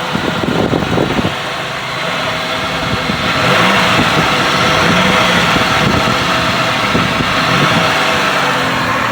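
The 3.8-litre V6 of a 2005 Pontiac Bonneville, freshly fitted with Series 3 heads and new gaskets, running smooth at idle. About three seconds in it gets louder, its note rising and falling a little.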